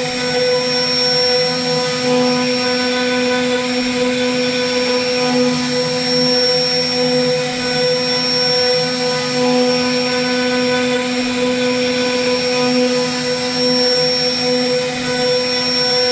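CNC router spindle running at speed, its bit carving a relief pattern into a wooden panel: a steady whine made of several fixed pitches over the noise of the cutter chipping the wood.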